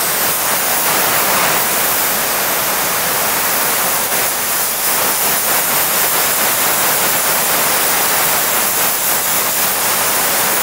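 Spotting-table steam gun blowing a steady, loud hiss of steam through the fabric, flushing the perborate bleach out so it leaves no white residue.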